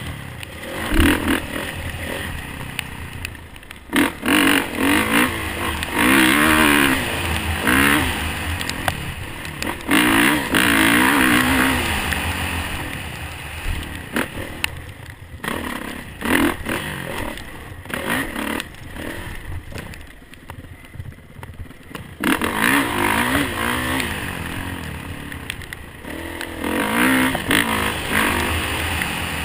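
Motocross bike engine revving up and down as it is ridden over a dirt trail. The throttle eases for a few seconds past the middle, then the engine picks up again.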